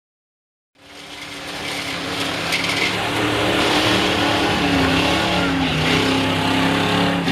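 Ford six-cylinder short-bed pickup's engine revving under load as it churns through deep mud, its pitch wavering up and down, with the tyres throwing mud. The sound fades in about a second in.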